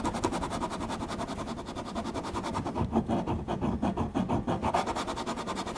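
80-grit sanding block rubbed over a plastic-welded screw-hole repair on a plastic kayak hull in quick, even back-and-forth strokes, smoothing the weld flush.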